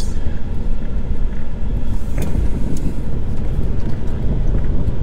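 Motorhome driving slowly, heard from inside the cab: a steady low rumble of engine and road noise, with a faint click about two seconds in.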